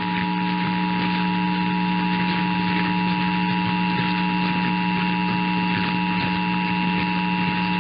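Emergency Alert System two-tone attention signal: two steady tones, 853 and 960 Hz, sounding together without a break, over a steady low hum. It is the alert tone that comes before the voice message of a required monthly test.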